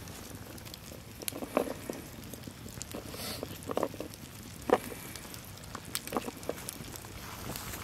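Garlic cloves dropped one by one into a cast iron Dutch oven of pot roast, each landing with a short soft tap or plop, irregularly spaced, the loudest about halfway through. A low, steady campfire background sits under them.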